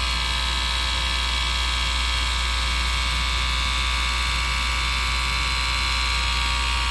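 Split-Ender Pro 2 split-end trimmer's small electric motor running with a steady buzzing whine as it is guided down a strand of hair to trim the ends.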